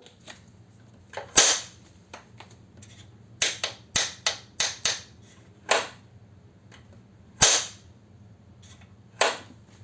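Kuickwheel S1-C electric scooter's metal side stand knocking against the frame: a dozen or so sharp, irregular clacks, the loudest about a second and a half in and about seven and a half seconds in. This is the rattle of a loose side stand that bounces when the scooter is jolted or folded.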